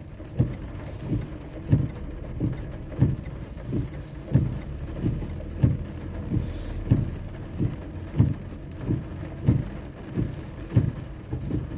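Heavy rain on a car with its engine running, a steady low rush, and a soft regular knock about every two-thirds of a second.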